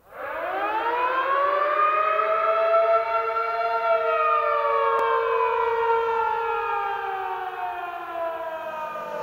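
A siren winding up over about the first second and a half to a chord of several tones, holding, then slowly winding down in pitch.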